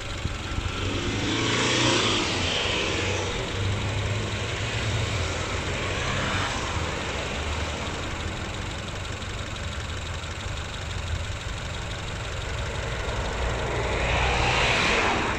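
A 2003 Mitsubishi Lancer's 2-litre four-cylinder petrol engine (4G94) idling steadily, heard over the open engine bay. It is a high-mileage engine at about 334,000 km that has been burning oil. A louder swell of hiss comes about two seconds in and again near the end.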